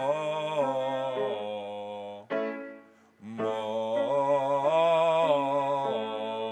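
A man singing a vocal warm-up exercise on an open vowel: two phrases of held notes stepping up and then back down in pitch, with a short break between them about two seconds in.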